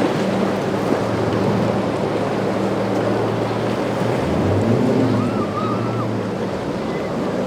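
Boat engine droning at a steady pitch over the rush of waves and wind; the engine note dips and comes back up about four seconds in.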